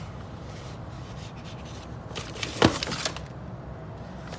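A cardboard watch box and its packaging being handled: rubbing and scraping, with one sharp knock a little past halfway, over a steady low hum.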